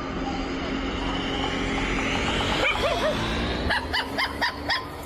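A dog whining in rising and falling calls a little past halfway, then barking in quick short yaps, about four a second, over a steady hum.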